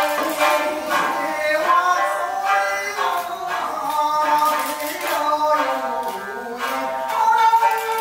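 Music with a sung melody, pitched lines that glide and change note over a steady accompaniment.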